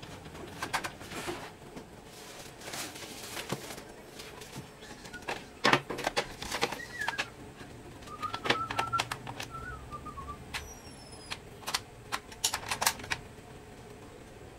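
Irregular clicks, knocks and rattles of plastic parts as the mechanism of a disassembled Epson L120 inkjet printer is handled and worked on.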